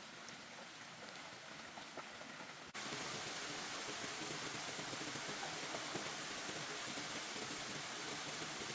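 Steady rain with a few faint ticks. About three seconds in the sound cuts abruptly to a louder, denser hiss of rain that holds steady.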